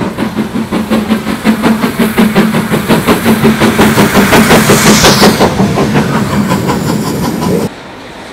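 GWR Castle class No. 7029 Clun Castle working hard, its exhaust beating rapidly and evenly and growing louder as it draws close. Near the end the sound cuts abruptly to the much quieter, steady sound of a train further away.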